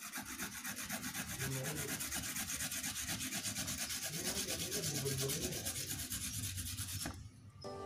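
Kencur (aromatic ginger) rhizome being grated on a hand grater: quick, even rasping strokes that stop near the end.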